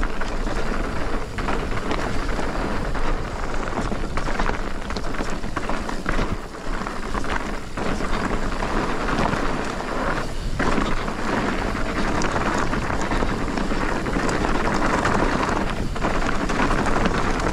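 Commencal Meta TR mountain bike descending a downhill trail: a continuous rush of wind buffeting the action camera's microphone and tyres rolling over dirt and stones, with occasional sharp knocks from the bike over bumps.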